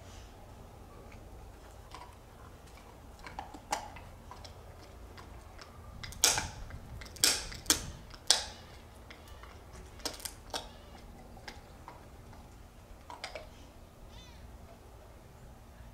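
A dog gnawing on a bone: irregular crunching cracks and clicks of teeth on bone, loudest as four sharp cracks a little past the middle, with a few fainter ones later.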